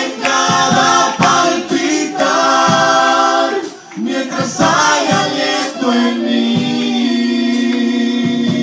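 Church praise team singing a worship song into microphones, lead and backing voices together, with held notes and one long sustained note over the last couple of seconds.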